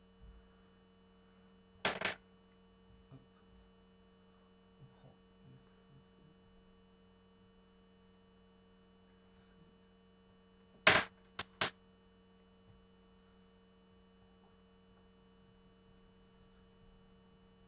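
Steady low electrical hum with a few sharp knocks: a double knock about two seconds in, then three in quick succession near eleven seconds.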